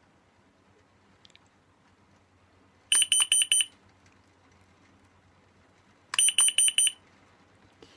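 Raholy COD7 carbon monoxide alarm sounding its test alarm: two short bursts of rapid high-pitched beeps about three seconds apart, one about three seconds in and one about six seconds in. The beeping measures about 80 dB right next to the unit, which is its rated level.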